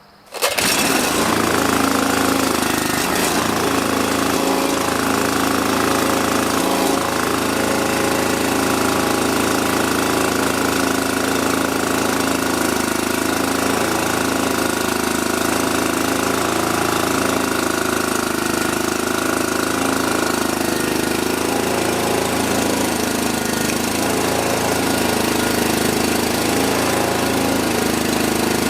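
Bobcat 48-inch walk-behind mower's engine catching on the pull-start right at the beginning, its carburetor primed with a squirt of fuel, then running steadily and loudly.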